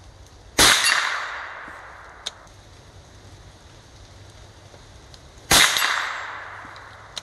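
Two shots from a Keystone Crickett single-shot bolt-action .22 LR rifle, about five seconds apart, each a sharp crack with a long echoing tail. A light click falls between them.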